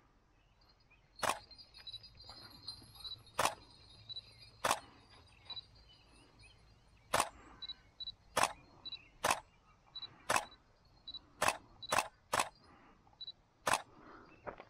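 About a dozen sharp clicks at irregular intervals, some close together, with short high peeps between them over faint outdoor background.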